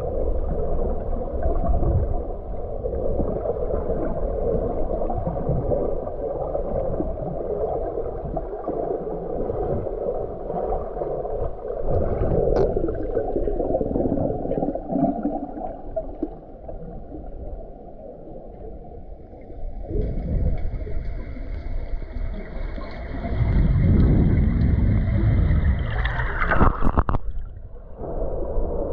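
Muffled underwater sound through a camera's waterproof housing: a steady low rushing and gurgling of water. About two-thirds of the way through, faint high steady tones join in. Near the end the rushing surges louder and is broken by a short sharp crackle.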